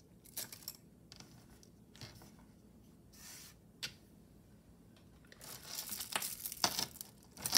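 Quiet handling noises of costume jewelry being sorted: scattered light clicks and rustles, busier near the end as the next pieces are picked up.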